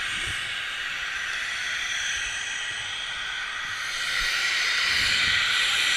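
Steady rushing hiss of wind and snow over an action camera's microphone, swelling louder about four seconds in.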